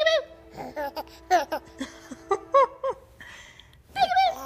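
Short, high-pitched bursts of laughter and squeals, about eight in a row, with a louder run near the end.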